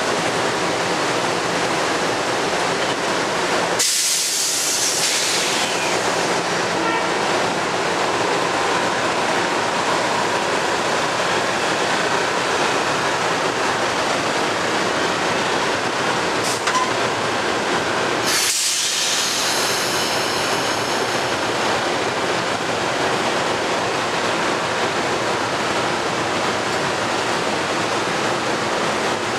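A Metro-North M2-family electric multiple-unit commuter train rolling past and pulling away, with steady rumbling wheel and running noise. Two sudden bursts of high hiss come, about 4 seconds in and again about 18 seconds in, each fading over a second or two.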